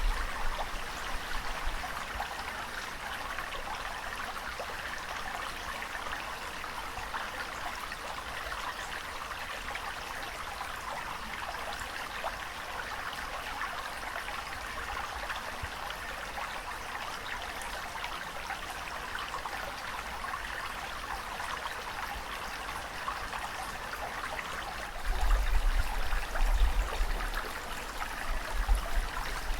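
Steady rush of water, an even hiss with no breaks. About 25 seconds in, a deep low rumble comes in under it and the sound gets louder.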